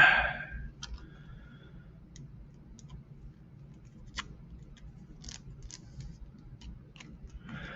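Football trading cards being handled and set down: scattered light clicks and taps of card stock, several seconds apart.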